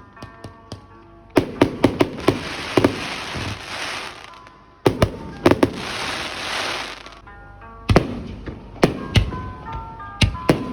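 Aerial fireworks going off: a string of sharp bangs, with two long spells of dense crackling hiss in the first seven seconds and scattered single booms later.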